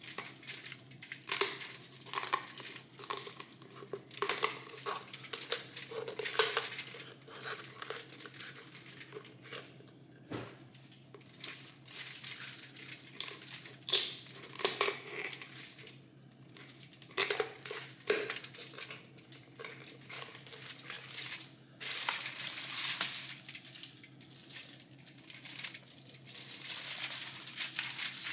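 Kitchen shears snipping and crunching through the bones along a raw turkey's backbone, in irregular cracks and snips, with the aluminium foil under the bird crinkling.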